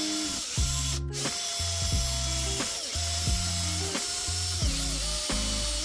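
Cordless drill spinning a coarse polishing pad against nickel-plated metal, buffing it. Background music with a stepping bass line plays along with it.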